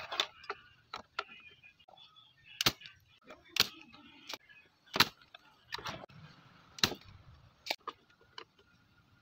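A string of irregular sharp clicks and crackles, a dozen or so spaced unevenly, some much louder than others, with a faint hiss between them.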